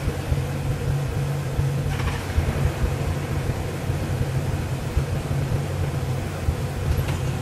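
An engine running at a steady idle, a loud low even hum.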